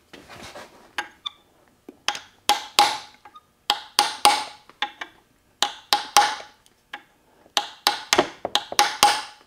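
Hammer blows on a steel punch, sharp metallic strikes with a short ringing note, coming in clusters of two or three with short pauses between. They are driving in, then spreading, an 11/16-inch Welch (expansion) plug seated in a Ford Toploader 4-speed's cast-iron case.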